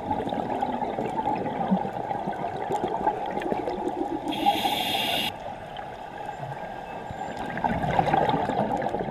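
Scuba breathing heard underwater: exhaled bubbles gurgling over steady water noise, with a hiss of about a second near the middle, typical of a regulator inhale, and a louder burst of bubbling near the end.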